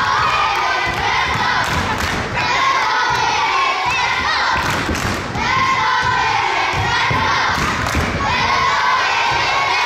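Children and spectators shouting and cheering at a youth basketball game, with repeated thuds of the ball bouncing on the court among the voices.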